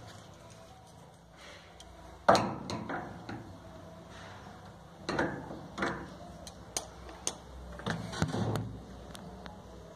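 A metal wrench clicks and knocks against a gas clothes dryer's gas valve and its brass fittings while it is set onto and turned on a fitting, in scattered strikes; the sharpest comes about two seconds in.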